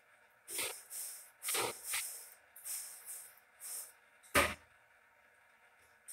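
Flatbread dough being patted out between the palms: a run of short slaps, about two a second, with one sharper, louder slap about four seconds in.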